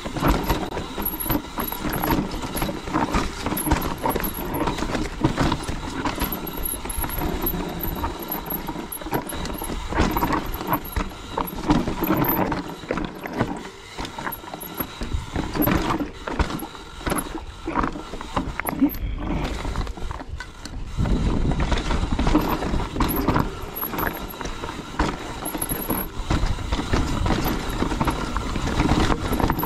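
Mountain bike riding down a rough, rocky trail: constant irregular knocking and rattling as the tyres strike rocks and the bike clatters. A low rumbling rush grows stronger about two-thirds of the way through.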